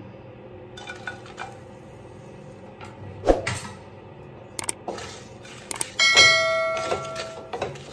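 A chime like a notification bell rings for about a second and a half, starting about six seconds in: the sound effect of a subscribe-button animation. Before it, one knock on the nonstick pan about three seconds in as grated coconut goes in, then a few light clicks of the spatula on the pan.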